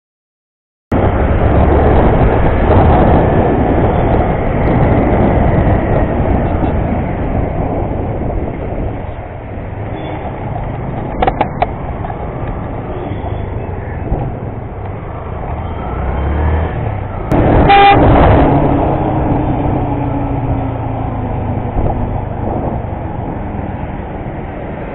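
Riding a motorcycle through traffic: steady engine and wind rush on the bike-mounted camera's microphone, cutting in about a second in. Vehicle horns sound over it, a couple of short toots about eleven seconds in and a louder horn blast a few seconds later, the loudest moment.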